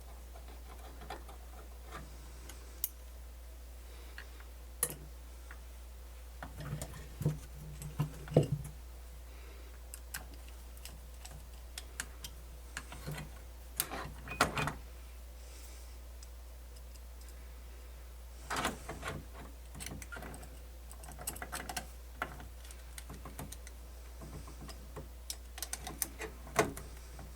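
Scattered clicks and light taps of small screws, a screwdriver and metal parts being handled while a cassette deck's motor is screwed back onto its bracket, with a few quick flurries of clicks, over a steady low hum.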